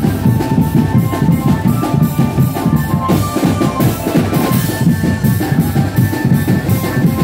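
Music with a fast, steady drum beat and a higher melody line held over it.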